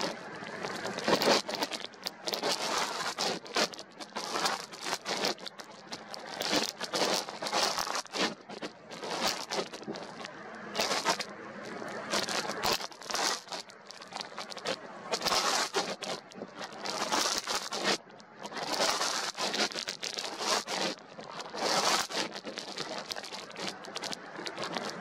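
Strong wind buffeting the camera's microphone: a rough, crackling rush that swells and drops in irregular gusts.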